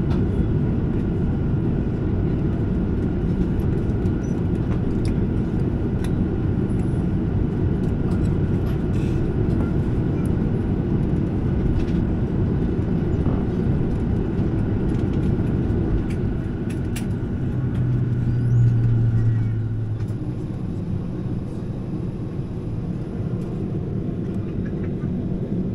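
Cabin noise of a Boeing 737-700 taxiing on the ground, heard from a window seat over the wing: a steady low rumble from its CFM56-7B engines at idle, with a faint high whine that fades out partway through. About 18 seconds in, a low hum swells for two seconds, then the noise eases slightly.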